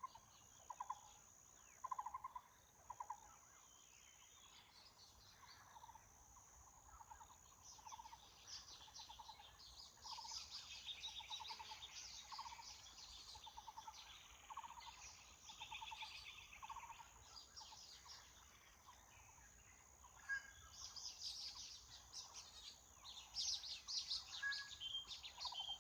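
Taiwan barbet calling: a run of low, rapidly pulsed notes repeated about once a second, which fades out about two-thirds of the way through. Other small birds chirp higher and busier over it, loudest in the second half.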